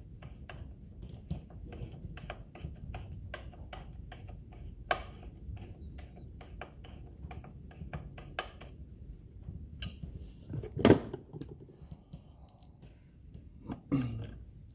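Light clicking of a T-handle screwdriver driving the cover screws on a Stihl MS 461 chainsaw, several clicks a second, then a sharp knock about eleven seconds in and another near the end.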